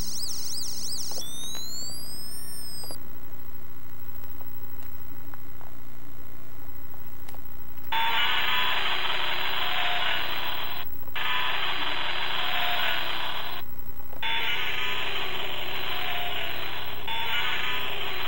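A toy police car's electronic siren warbles, then wails up and down, for about three seconds. After a quiet stretch, about eight seconds in, a long harsh rasping roar for the Godzilla puppet starts. It comes in three long stretches with short breaks between them.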